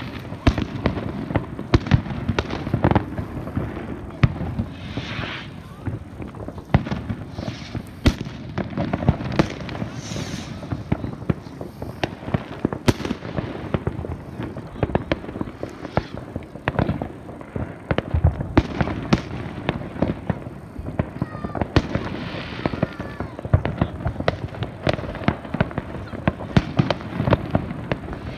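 Fireworks display: aerial shells bursting in a rapid, irregular series of bangs and crackles.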